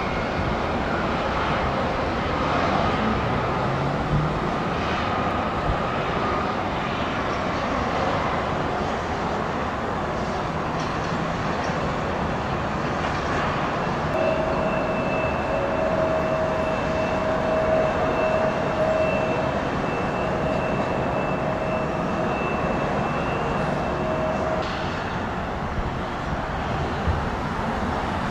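Jet airliner engines running with a steady rushing noise; a steady high whine joins about halfway through and stops a few seconds before the end.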